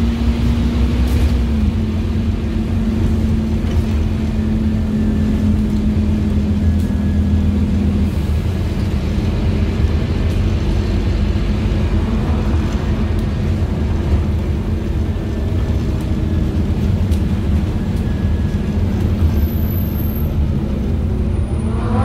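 Scania DC9 diesel engine of a Scania N230UD OmniCity double-decker bus, heard from inside the passenger saloon as the bus drives along with its ZF Ecomat automatic gearbox. Under the steady low engine rumble, a steady whine stops about eight seconds in.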